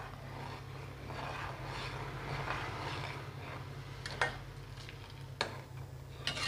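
A steel spoon stirring milk in a non-stick pan, with a few light clicks of the spoon against the pan, over a faint steady low hum.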